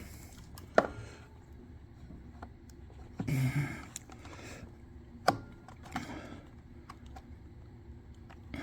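Scattered sharp clicks and light clatter of a hand tool on small metal parts, as the trigger-cable fitting is loosened and adjusted. There is a short rustle about three seconds in.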